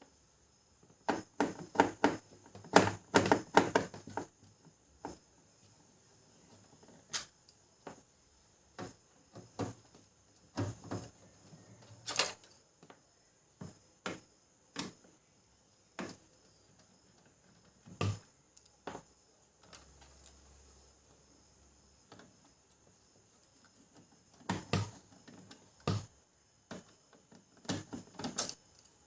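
Clicks, taps and knocks of a screwdriver and screws being worked out of a laser printer's plastic housing, in irregular bunches with single clicks between.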